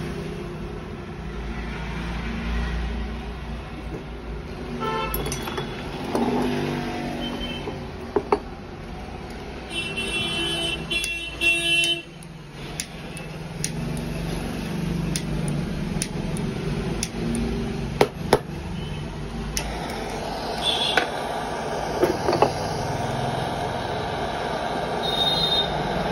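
Street traffic rumbling, with a car horn tooting about ten seconds in and scattered sharp clicks. In the last few seconds a small handheld gas torch hisses steadily.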